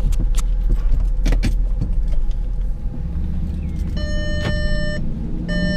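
Inside the cabin of a VW Touareg V8 petrol on the move: steady engine and road rumble with a few knocks and rattles in the first two seconds. About four seconds in, a warning chime starts beeping in long tones, roughly a second on and half a second off: the handbrake warning, because the car is being driven with the handbrake still up.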